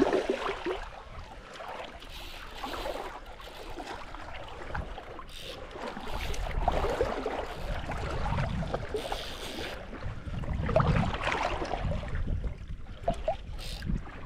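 Shallow water sloshing and splashing irregularly, with a low rumble through the second half.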